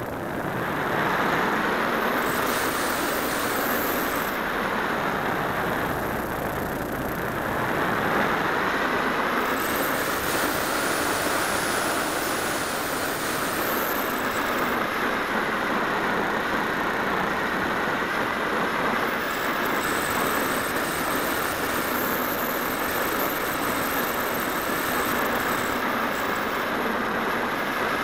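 Steady rushing wind noise on the wing-mounted camera of an electric RC glider in flight, dipping briefly near the start and again about six seconds in.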